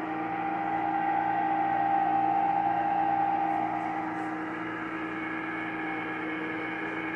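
Cuisinart ice cream maker running, its motor turning the dasher through thickened vanilla ice cream near the end of churning. The hum is steady, with a higher tone that swells over the first seconds and fades about four seconds in.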